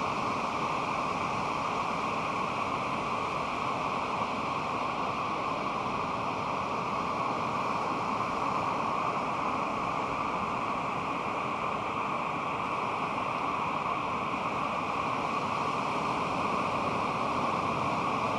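Pacific Ocean surf washing on a beach, a steady, even rush with no separate wave crashes standing out.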